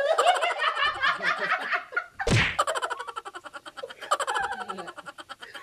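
A group of people laughing hard together in rapid, breathy pulses. A single loud thump cuts in a little over two seconds in.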